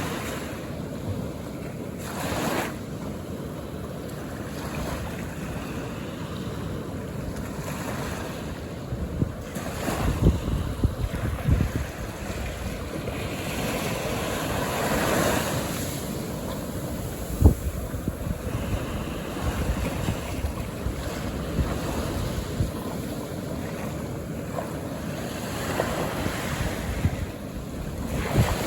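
Calm ocean waves washing onto a beach, the surf swelling and easing as sets come in, with wind buffeting the microphone. A single sharp low thump about two-thirds of the way through.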